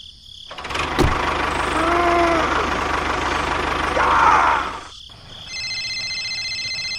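A tractor engine sound starts with a click and runs roughly for about four seconds, the tractor stuck nose-down in a pit. It cuts off, and about a second later a mobile phone ringtone of pulsed electronic beeps begins.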